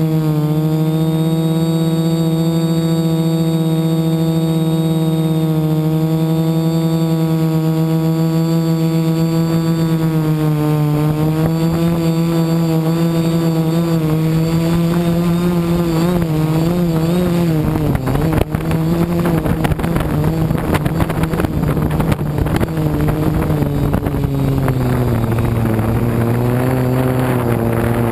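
Quadcopter's brushless motors and propellers whining, heard up close from the drone's own camera. The pitch holds steady at first, then from about ten seconds in wavers up and down as the throttle changes, and in the last third it sits lower with a rough, crackling edge.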